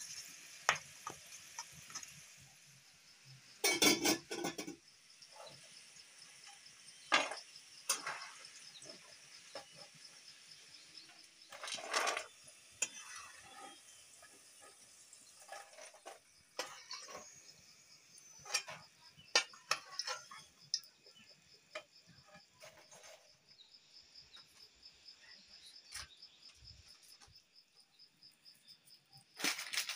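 Metal kitchen utensils knocking and scraping against a cooking pot and a frying pan in scattered clinks, as the pasta is stirred and the fried potatoes are lifted out with a slotted spoon. Insects chirp steadily and high-pitched in the background.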